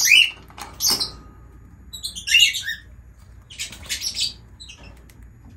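Lutino rosy-faced lovebird calling in its cage: a few short chirps at the start, a sharp click about a second in, then a quick cluster of high chirps and a harsher, rasping call.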